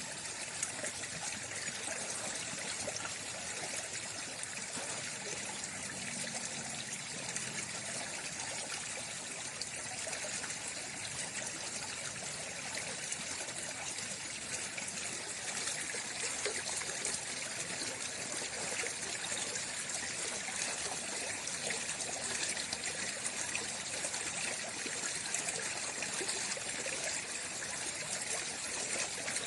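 Water flowing and trickling steadily: an even splashing hiss with a fine patter in it.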